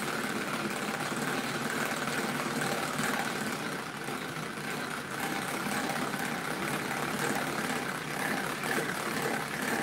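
Tupperware Speedy Chef hand-cranked whisk being turned steadily, its gears and beaters giving a continuous whirring clatter as it whips egg whites into foam.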